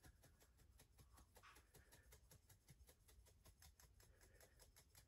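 Near silence, with faint rapid ticking throughout.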